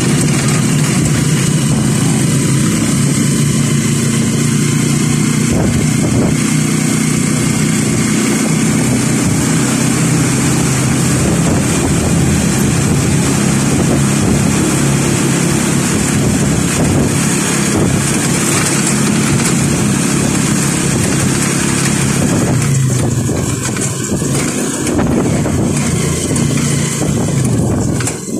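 Engine and road noise of a moving vehicle heard from on board: a steady low engine hum under wind and tyre noise, easing off over the last few seconds.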